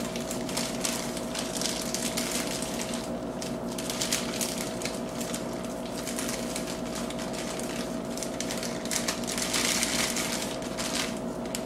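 Plastic marshmallow bag crinkling and rustling as marshmallows are tipped into a plastic mixing bowl: a dense run of irregular crackles, over a steady hum.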